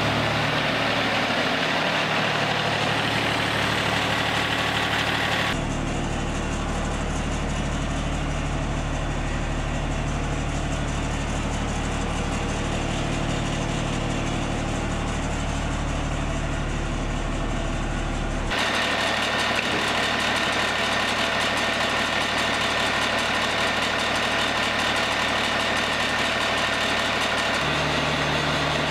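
Wood-Mizer LT40 Wide sawmill's engine idling with a steady hum. The sound changes abruptly about five seconds in, when a strong low drone comes up, and again after about eighteen seconds, when it gives way to a thinner hiss with a faint steady tone.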